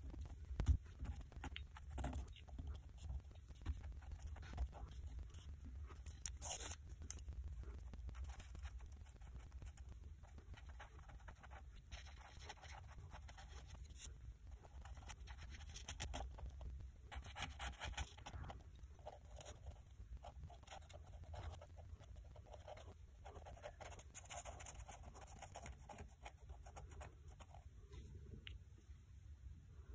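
Faint, intermittent scraping and rubbing of a small hand tool worked along the filled crack of a ceramic bowl, with a few soft knocks from handling the bowl.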